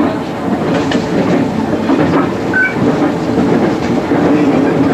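MI79 electric train running at speed, heard from the driver's cab, its wheels clacking steadily over rail joints and points, with a brief high squeal about two and a half seconds in.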